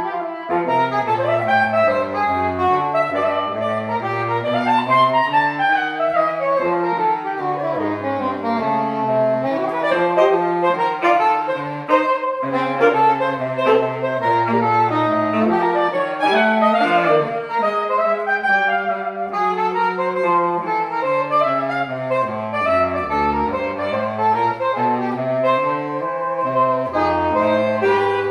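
Saxophone quartet playing a jazz piece in close harmony, several lines moving together over a low bass part.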